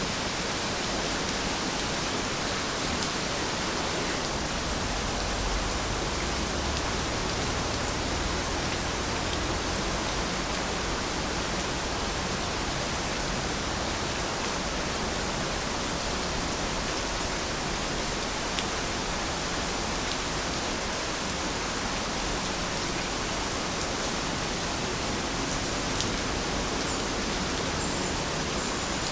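Steady, even rain falling, with occasional faint drop ticks.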